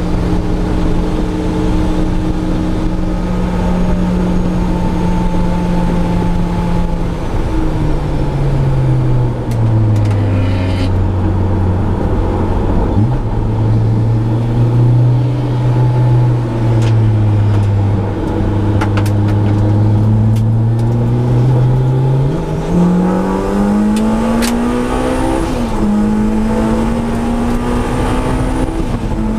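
Supercharged Honda S2000's inline-four engine, heard from inside the cabin on track. It holds a steady note, then falls in pitch about seven seconds in as the car slows into a corner, and stays lower and wavering through the turn. From about 22 seconds in it rises steeply as the car accelerates out, with a brief drop for an upshift near 25 seconds before climbing again.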